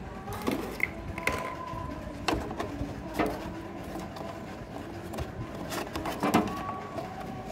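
Plastic clicks and knocks as a coffee vending machine's mixing bowl is handled and fitted onto its mount: several sharp taps, the loudest about six seconds in, over a faint steady background.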